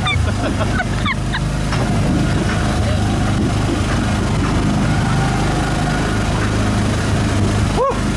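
Small gasoline engine of an Autopia ride car running steadily as the car drives along the track, heard from on board.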